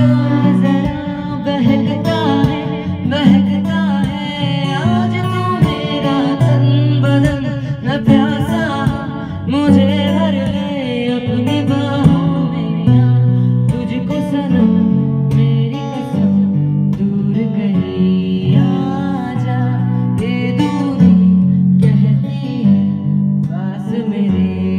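A man singing a song into a handheld vocal microphone, over instrumental backing with sustained low notes.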